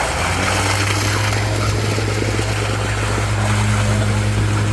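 Heavy diesel engine of the concrete equipment running with a steady low hum, over a constant noisy site background; the hum sets in just after the start and cuts off suddenly at the end.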